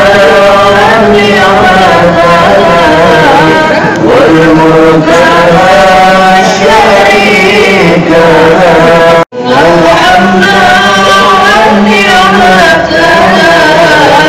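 Islamic devotional chanting by male voices, melodic and continuous, with a brief cut to silence about nine seconds in.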